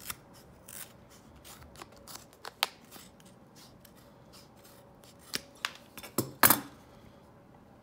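Shears snipping through an Apple iPhone 6 leather case, leather glued over a thin plastic shell: a run of crisp snips and cracks, the loudest cluster near the end.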